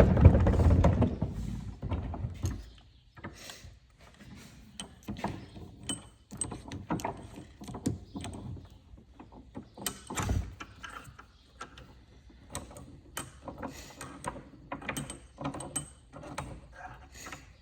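Small two-stroke chainsaw engine running, which stops about two and a half seconds in. After that come scattered clicks, knocks and rattles of the saw's parts being handled.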